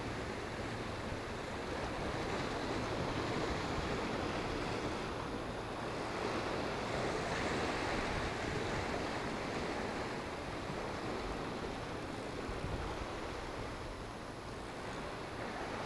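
Sea surf washing against the rocks, a steady rushing noise that swells and eases slightly.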